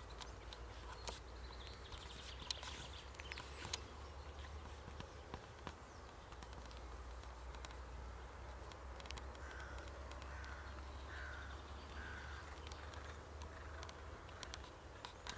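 A bird calls in a short series, each call a little under a second apart, over a steady low rumble and scattered faint clicks.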